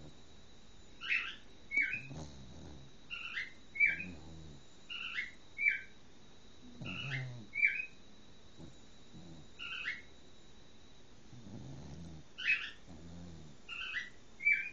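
Cocker spaniel snoring in her sleep: slow breaths, roughly one every two to three seconds, each with short high squeaky whistles and a low snore.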